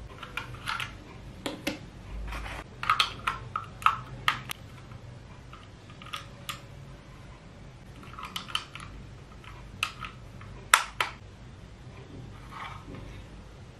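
Irregular sharp plastic clicks and taps from a new Goojodoq wireless mouse being handled and turned over in the hands, some coming in quick clusters.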